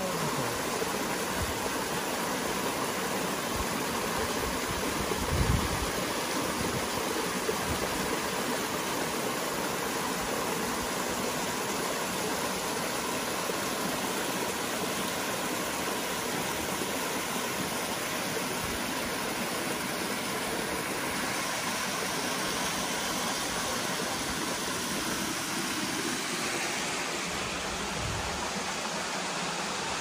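Small waterfall cascading down smooth rock into a pool: a steady rush and splash of falling water. A brief low thump about five and a half seconds in.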